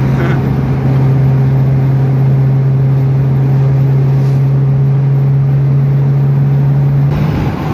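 Lada 2114 cruising at highway speed, heard from inside the cabin: a steady engine drone with a strong low hum over road and wind noise. The hum changes slightly near the end.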